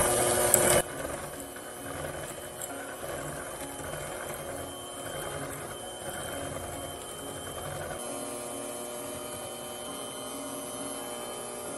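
Braun electric hand mixer running with its beaters in the batter in a glass bowl, beating an egg into creamed butter and sugar. It is louder for about the first second, then runs steadily and more quietly.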